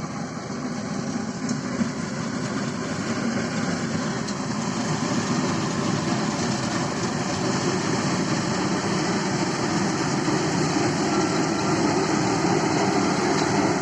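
Kuldeep Green Gold combine harvester running steadily while cutting paddy, a dense mechanical din that slowly grows louder.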